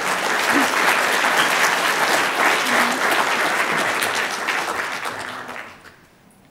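Audience applauding, a dense crowd of claps that holds steady and then dies away over the last second or so.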